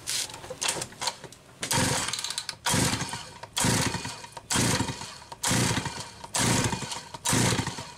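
Homelite 330 two-stroke chainsaw being pull-started: the recoil starter rope yanked about once a second, seven times, each pull cranking the engine with a short rasping burst, without it catching. The choke is off, so the cold engine won't fire.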